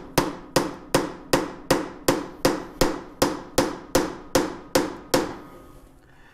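Hammer driving a cold chisel against the rear wheel hub of a 1914 Studebaker SC-4: about fourteen sharp metallic strikes, evenly spaced at roughly three a second, each ringing briefly, stopping about five seconds in. The chisel is working loose a hub part that was sealed down with RTV sealant.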